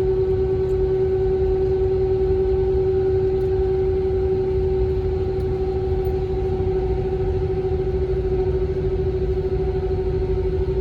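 Steady cabin hum of an Airbus A321 on the ground with its engines idling: one constant tone over a low rumble.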